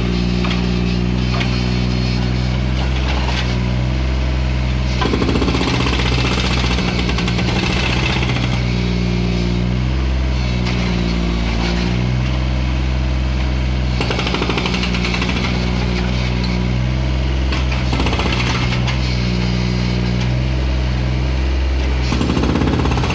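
Takeuchi mini excavator's diesel engine running steadily with a clattering note, its pitch sagging and recovering about ten seconds in, with short bursts of rattling noise several times.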